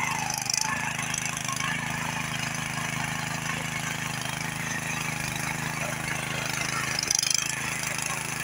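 Small engine of a walk-behind rotary tiller running steadily while its tines work the soil, with brief clatters about half a second in and again about seven seconds in.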